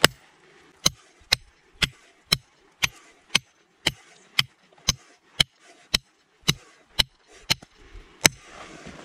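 Ontario SP-53 Bolo knife's 5160 carbon steel blade chopping into a stone block, sharp clacks about two a second, the last one near the end the loudest.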